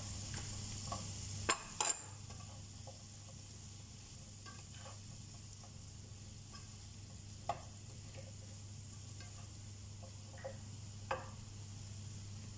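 Broccoli sizzling in butter in a stainless pan while a nylon slotted spatula stirs it, scraping the pan. The spatula knocks sharply against the pan twice about a second and a half in, and once each near the middle and near the end.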